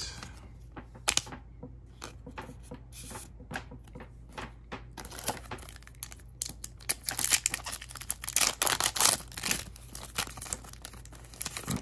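Foil trading-card booster pack being torn open by hand, its wrapper crinkling and crackling. A few small handling clicks come first; the tearing and crinkling grow dense and loudest from about halfway through to near the end.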